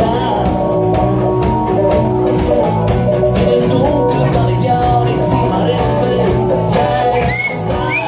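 Live rock band playing with electric guitars, bass guitar, drums and keyboard, and a man singing.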